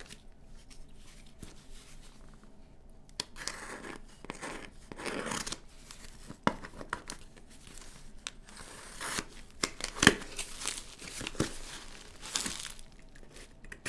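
Clear packing tape on a cardboard box being slit with a hobby knife and torn open, with ripping and crinkling of tape and cardboard in stretches and a few sharp clicks, the loudest about ten seconds in, as the flaps are pulled open.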